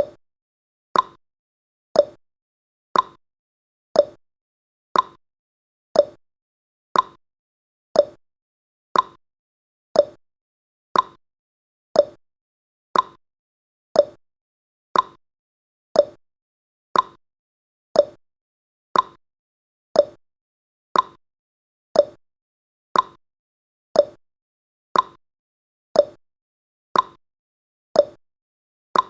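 Countdown timer's clock-tick sound effect: one short, sharp tick every second, alternating slightly between a higher and a lower tick like a tick-tock.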